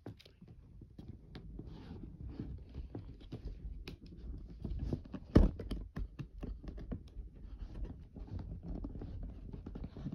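Hands working at a toy's box and packaging: irregular scratching, rustling and clicking, with one loud thump about five seconds in.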